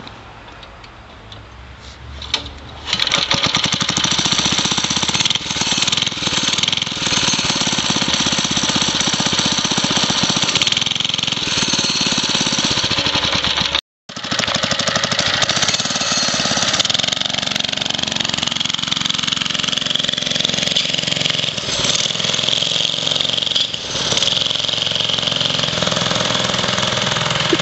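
3 hp Briggs & Stratton single-cylinder engine on a mini bike starts about three seconds in and then runs loudly, its pitch rising and falling as the bike is ridden. A brief gap breaks the sound halfway through.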